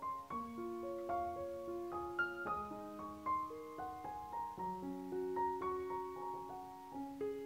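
Background piano music: a gentle melody over ringing chords, with a new note every half second or so.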